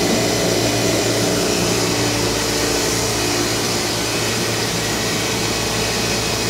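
Steady machinery hum of an Oxford Plasmalab 133 ICP380 plasma etch system and its vacuum pumps running: several held tones over an even hiss.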